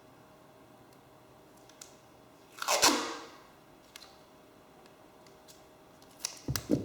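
Adhesive tape pulled off its roll in one quick rip a little before the middle, then a few sharp crackles and a low thud near the end as the tape is torn and handled.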